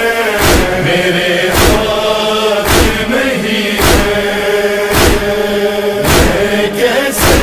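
Noha backing: a chorus of voices holds a wordless chanted drone, with a deep thump about once a second keeping time in the style of matam chest-beating.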